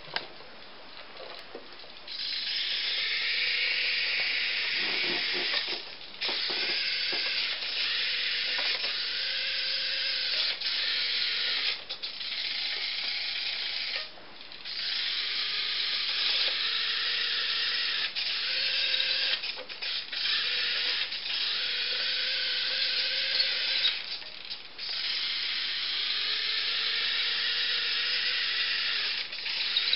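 Small electric drive motor and gearbox of a radio-controlled model Massey Ferguson 8680 tractor whirring as it drives, in runs of a few seconds broken by brief stops.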